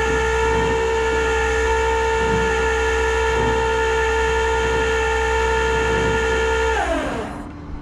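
Tow truck winch running under load with a steady whine over the truck's engine, then gliding down in pitch and stopping near the end as the pull is released.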